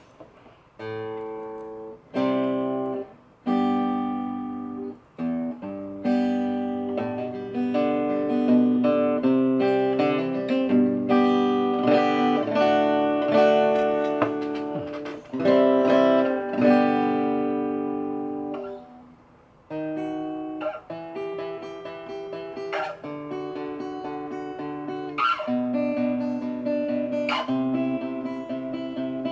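Egmond archtop acoustic guitar played fingerstyle, a tune of ringing chords and single notes, with a short break about two-thirds of the way through. The guitar is freshly repaired and set up.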